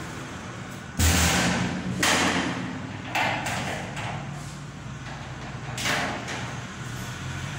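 Four sudden thuds, each trailing off in a brief rush of noise. They come about a second apart at first, then once more near the end, and the first is the loudest and deepest.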